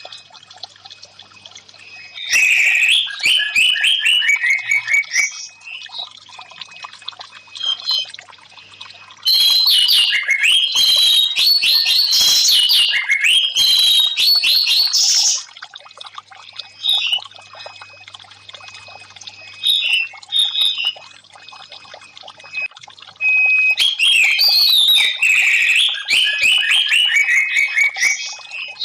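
Orange-headed thrush (anis merah) song in three long bursts of fast, varied, chattering high phrases, over steady trickling water.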